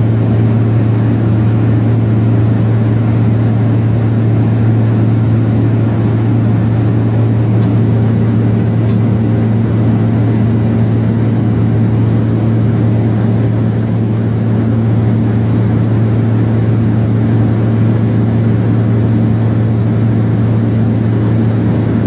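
Steady drone of the aircraft's engines and rushing air, heard from inside the cockpit on final approach. It is a low hum with a few fainter higher tones over a wash of noise, and it does not change.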